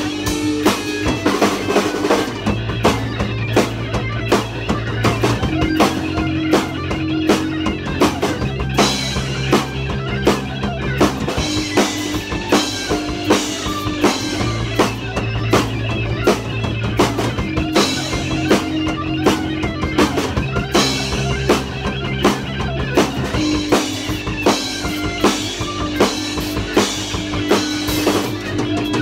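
Live rock band playing electric guitar, electric bass and drum kit, with a steady drum beat under held guitar notes.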